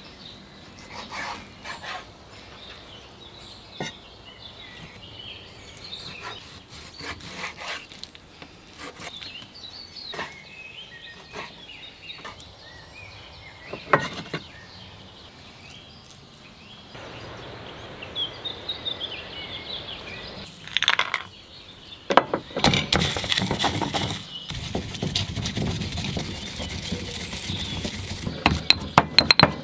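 A kitchen knife slicing raw beef on a wooden cutting board, with scattered scrapes and knocks of the blade on the board. In the last seven seconds or so, a stone pestle grinds and knocks in a stone mortar, louder and denser than the cutting.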